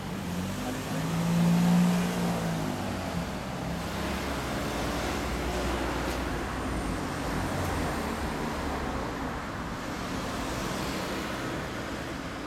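Motor vehicle running amid road traffic noise, swelling louder about two seconds in, then steady.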